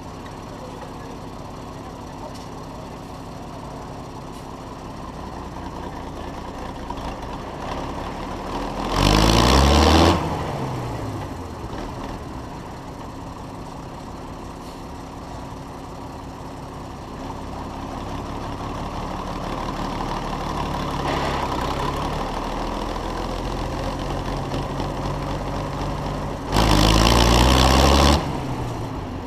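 IHC 956 XL tractor's six-cylinder diesel engine running while the tractor drives. Twice, about nine seconds in and near the end, it revs up sharply and much louder for a second or so, then falls back.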